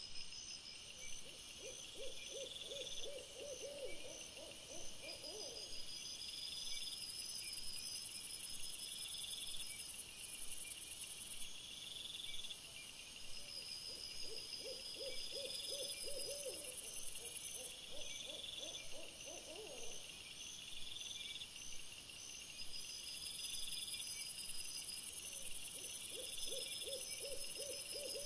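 An owl hooting: three runs of quick repeated low hoots, each a few seconds long, spaced roughly ten seconds apart.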